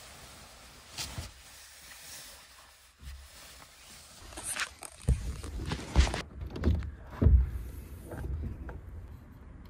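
Camera handling noise in a cramped truck camper: faint for the first few seconds apart from a click about a second in, then rustling and several heavy, dull thumps as the camera is grabbed and knocked about while someone scrambles inside.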